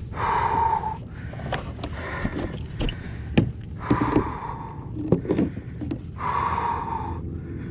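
Heavy breathing: three long, breathy exhales a few seconds apart. Sharp clicks and knocks fall between them, probably gear and the fish moving against the kayak.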